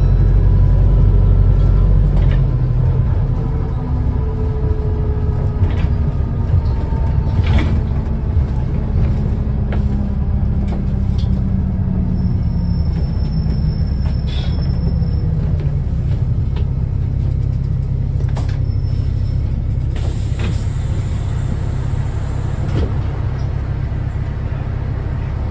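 New Routemaster series-hybrid bus running, with its Cummins ISBe four-cylinder diesel and Siemens electric drive motor: a steady low drone carrying a fainter whine that slowly shifts in pitch. Occasional sharp clicks or rattles sound over it, and the drone eases slightly after the first couple of seconds.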